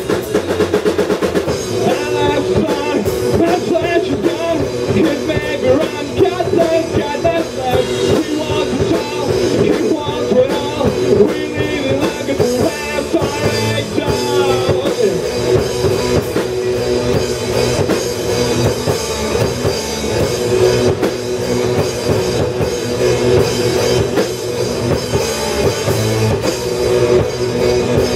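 Rock band playing live: drum kit, electric bass and distorted electric guitars playing together at full volume.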